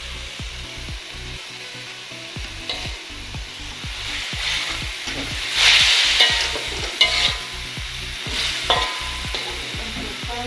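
Chopped button mushrooms and shredded chicken sizzling in a wok, with a metal spatula stirring and scraping against the pan in irregular clicks. The sizzling swells louder for about a second, about six seconds in, and there are a few sharper knocks of the spatula after it.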